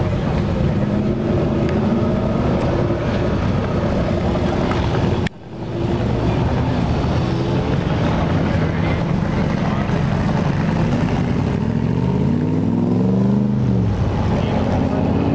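Cars' V8 engines running as they pull out and drive off: first a Shelby Mustang, then, after a brief break in the sound about five seconds in, a Cobra-style roadster accelerating past, its engine pitch rising and then falling near the end.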